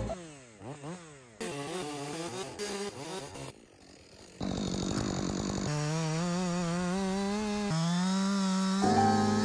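Husqvarna two-stroke chainsaw revving rapidly up and down, then after a brief lull running at full throttle while cutting into a poplar log, its pitch wavering and sagging slightly under load.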